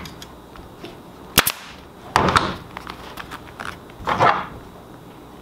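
A hand staple gun fires once about a second and a half in, a sharp double crack, fastening marine vinyl to a wooden boat panel. Twice afterwards the vinyl is pulled and rubbed over the board in short rustling scrapes.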